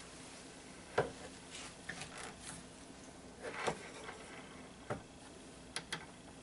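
Scattered light clicks and knocks of steel wire rope and an aluminium ferrule being handled against the steel jaws of a hand swaging tool, with a sharp click about a second in the loudest and a short rustle a little past the middle.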